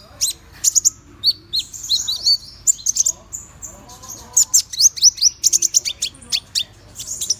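Konin songbird singing a fast, chattering song of high, sharp chirps and quick down-slurred notes, several a second, used as a lure song to set other konin singing.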